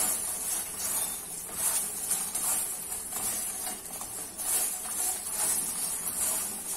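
Crisp fried pappadam strips rustling and crackling as hands toss and mix them in a steel bowl, an uneven scratchy sound over a steady high hiss.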